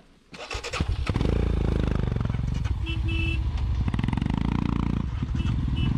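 Royal Enfield Scram 411 single-cylinder engine starting up about half a second in, then running with a steady low thump as the motorcycle rides off.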